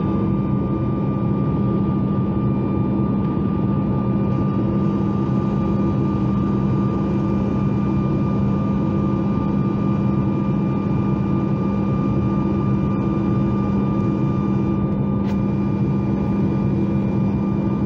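Boeing 737 MAX 8 jet engines (CFM LEAP-1B turbofans) at climb power, heard inside the passenger cabin as a steady drone. A low hum and a fainter higher whine sit over an even rush of air.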